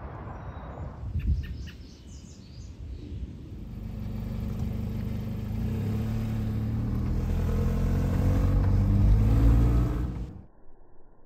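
A car engine accelerating, heard from inside the car: a low hum that rises slowly in pitch and grows louder over several seconds, then cuts off abruptly near the end.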